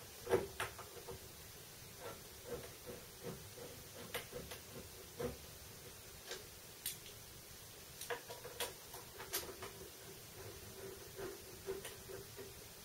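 Faint, irregular metallic clicks and ticks of a T-handle hex key turning and knocking on the M6 bolts that fasten the X-axis ball screw to a PM-25 milling machine, some clicks ringing briefly. The sharpest click comes about a third of a second in.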